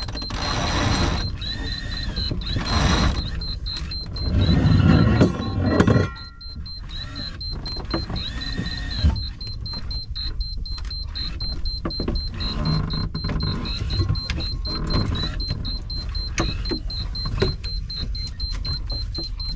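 Sailboat sheet winch being cranked and tailed as a sheet is trimmed, with a repeated ratcheting whir and clicks. A loud rushing noise comes in about four seconds in and lasts a couple of seconds.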